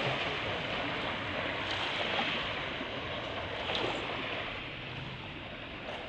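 Small waves washing onto a pebble beach, swelling and falling back about every couple of seconds.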